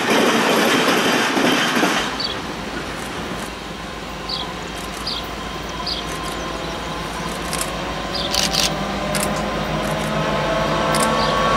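Rail noise from a passing train stops abruptly about two seconds in. It gives way to the low rumble of a diesel-led freight train approaching, growing louder, with a steady pitched drone coming in over the last few seconds.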